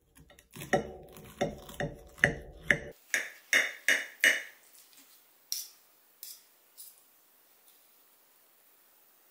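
A quick series of sharp knocks, about two or three a second for roughly four seconds, then a few scattered fainter ones that die away.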